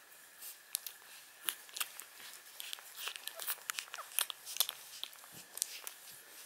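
Newborn Shar Pei puppies suckling at their mother's teats: irregular soft wet clicks and smacks, several a second.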